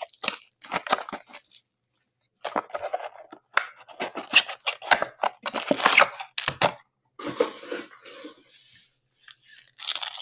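Plastic wrapping and foil card packs crinkling and tearing as a box of Upper Deck Allure hockey cards is opened and its packs are pulled out by hand. It comes in irregular bursts of rustling, with a short pause about two seconds in.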